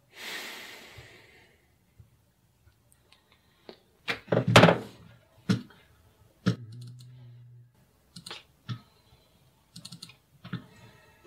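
Scattered keystrokes and clicks on a computer keyboard and mouse at a desk, with a few heavier thunks, the loudest about four and a half seconds in. A short hiss of noise opens it.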